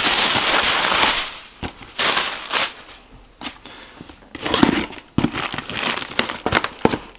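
Packaging being handled and opened: crinkling, rustling and tearing in bursts, with a long rustle at the start and shorter crackling handfuls after it.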